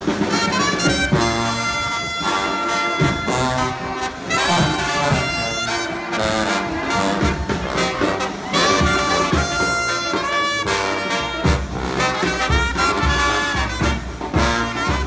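Music led by brass instruments in a jazzy style, with a bass line growing stronger about eleven seconds in.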